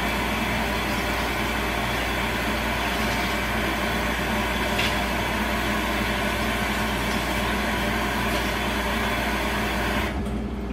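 Kitchen tap running steadily into a stainless steel sink while dishes are rinsed, turned off near the end.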